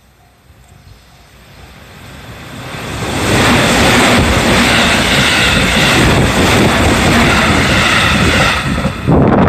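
An electric train passing a level crossing: the rolling noise builds over about three seconds into a loud, steady rush of wheels on rail. The crossing bell dings faintly at the start, and sharp clicks of wheels over rail joints come near the end.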